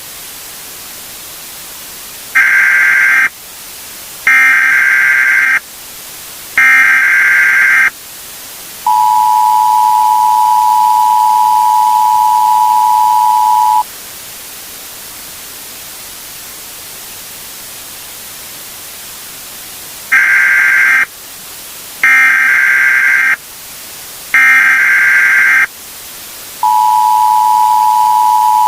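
Emergency Alert System tones over a steady hiss: three loud data bursts of about a second each (the digital SAME header that opens an alert), then the two-tone attention signal held for about five seconds. After a stretch of hiss the sequence repeats, with the attention signal starting again near the end.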